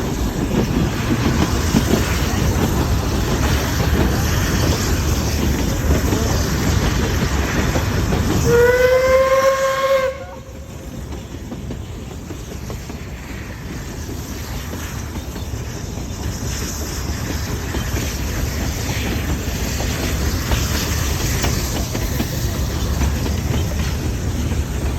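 Steam train running along the track with a steady rumble and clatter. About eight and a half seconds in, its steam whistle sounds once for about a second and a half, sliding up in pitch as it starts. Right after the whistle the train noise drops suddenly, then slowly grows louder again.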